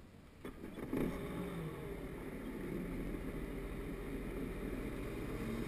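Sea-Doo personal watercraft engine coming in with a click about a second in, then running steadily.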